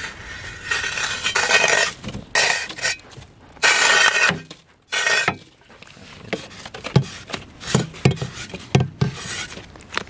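Folding shovel scraping up snow in four long strokes, then several short sharp knocks as it knocks snow off into a plastic cooler.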